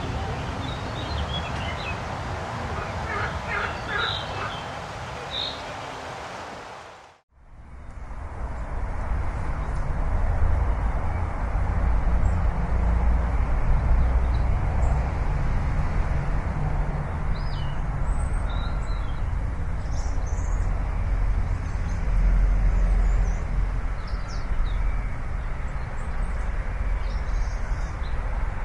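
Outdoor ambience with scattered bird chirps over a steady rush. It cuts out about seven seconds in and gives way to a louder bed with a heavy low rumble and occasional chirps.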